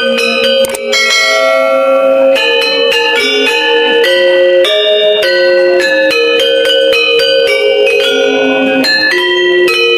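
Balinese gender wayang: bronze-keyed metallophones with bamboo resonators, struck with wooden disc mallets, playing fast interlocking ringing notes. One stroke about a second in rings out longer than the rest.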